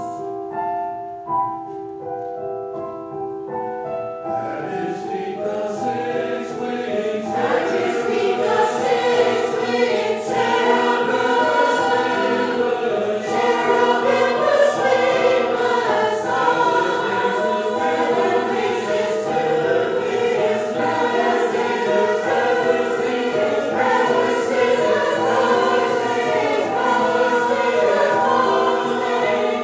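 Church choir singing a Christmas cantata. The opening few seconds are quieter held notes, then the full choir comes in about four seconds in and the singing grows louder.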